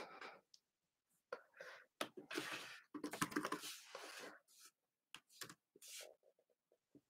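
Faint whispered muttering under the breath, with a few soft taps on the Framework laptop's keyboard.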